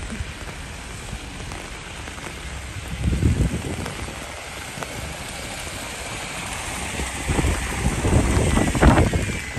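Steady rain falling, with low rumbles swelling about three seconds in and again from about seven seconds to near the end.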